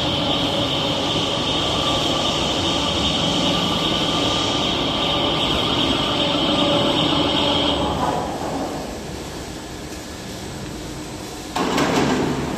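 Hydraulic press brake running, its pump and motor giving a steady hum with a high whine. The level drops about eight seconds in, then jumps back up sharply near the end.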